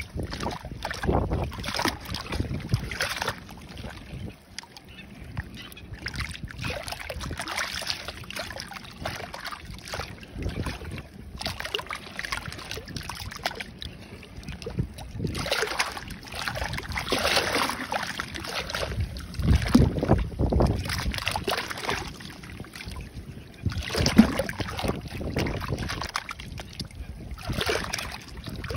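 Small waves washing in and out of a crack between seawall blocks, sloshing in irregular surges every few seconds.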